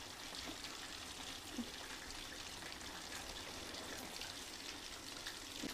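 Spice-coated chicken pieces frying in hot oil: a steady sizzle with small crackles and pops.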